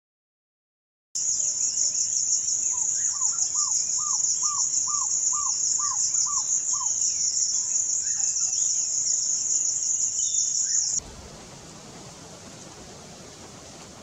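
African barred owlet calling: a run of about nine short, rising-then-falling whistled notes, about two a second. Behind it a loud, high, pulsing insect trill is the loudest sound; it cuts off suddenly about eleven seconds in, leaving a steady hiss.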